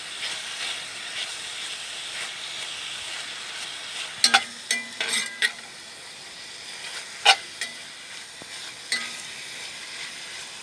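Beef strips sizzling in hot oil in a wok, a steady frying hiss, with a few sharp clicks of a utensil against the wok as they are stirred, a cluster of them about halfway through.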